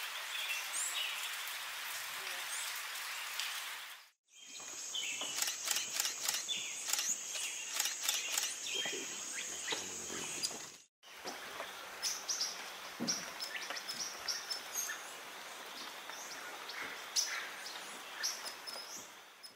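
Tropical forest ambience with small birds chirping and calling, in three stretches with sudden cuts about 4 and 11 seconds in. The middle stretch has a steady high whine and a run of rapid sharp ticks and chips.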